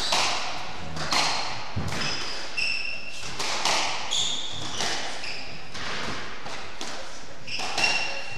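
A squash rally: the ball cracking off rackets and walls about once a second, the loudest hit near the end, with short high squeaks of court shoes on the wooden floor between hits.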